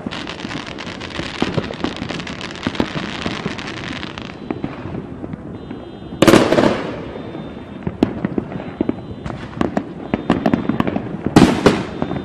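Aerial fireworks going off. There is dense crackling for about the first four seconds and scattered sharp pops throughout. Two loud bursts, each with a fading tail, come about six seconds in and again near the end.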